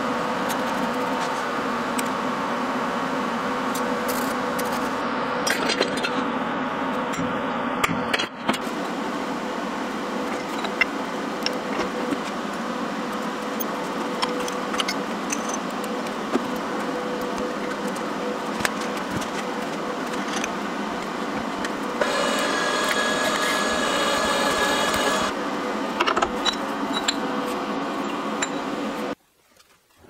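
Shop machinery running steadily, with scattered light metal clicks and taps. The sound turns brighter for a few seconds about three-quarters of the way through, then cuts off abruptly near the end.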